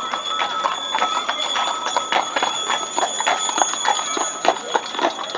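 Draft horses' hooves clip-clopping irregularly on a paved street as they pull carts, with harness bells ringing over a steady high ringing tone.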